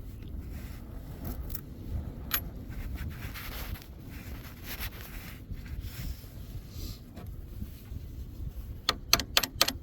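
Faint scraping and handling of a car battery's negative terminal, with one sharp click. Near the end comes a ratchet wrench clicking quickly and evenly, about seven clicks a second, as the terminal bolt is run in.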